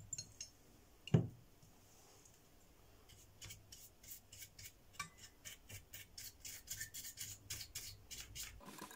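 Bristles of a brush scrubbing a circuit board, a quick run of short scratchy strokes, about four a second, starting about three seconds in. Before it comes a single knock about a second in.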